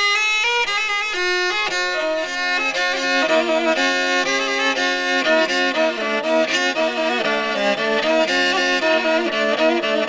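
Background music with a violin carrying the melody over sustained accompanying notes, the tune moving from note to note.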